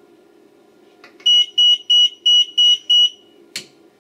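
Intruder alarm sounder beeping: a run of six short, high beeps, about three a second, starting just over a second in, over a faint low hum. A click comes just before the beeps and another shortly after them.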